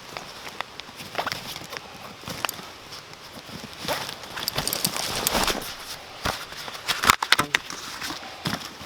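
Footsteps and rustling with irregular knocks, and a cluster of sharp knocks about seven seconds in.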